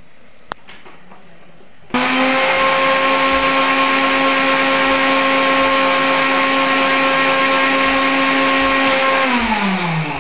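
Electric mixer grinder running with wet peanut chutney in its steel jar. After a short click, the motor starts abruptly about two seconds in and runs at a steady pitch. Near the end it winds down, its pitch falling.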